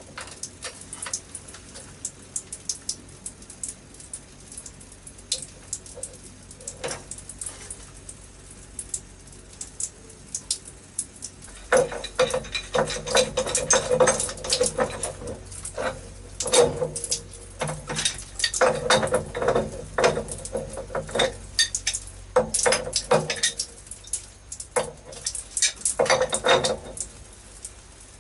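A metal spanner clinking and scraping against a brass valve and its threaded pipe fittings as the valve is worked. Scattered clicks at first, then from about halfway through the clinking and scraping comes in dense, busier spells.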